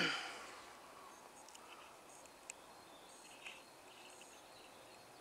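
Faint, scattered bird chirps over a quiet garden background, after a short sound falling in pitch right at the start.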